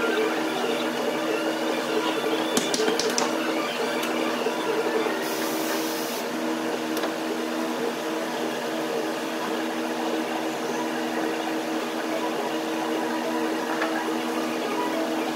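A steady mechanical hum at a fixed pitch, with a few light clicks about two and a half seconds in and a brief hiss around five seconds in.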